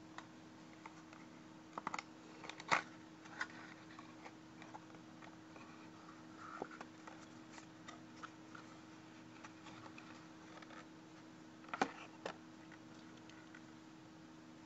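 Foil wrapper of a chocolate surprise egg crinkling and clicking under fingers as the egg is handled, with louder crackles about three seconds in and again near twelve seconds. A faint steady hum runs underneath.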